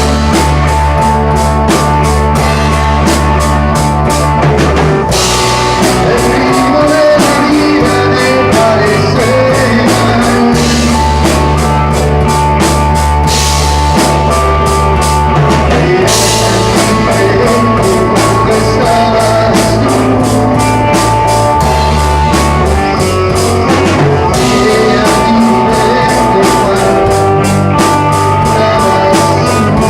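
Rock band playing: a drum kit keeps a steady beat under bass and guitar.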